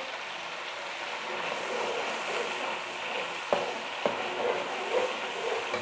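Spice paste sizzling in hot oil in a pan, a steady frying hiss, while a spoon stirs it, with two sharp clicks of the spoon against the pan about three and a half and four seconds in.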